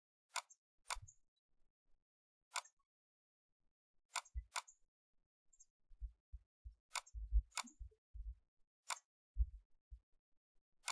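Computer mouse clicking, about ten sharp clicks at irregular intervals, several in quick pairs. Soft low bumps sit underneath in the second half.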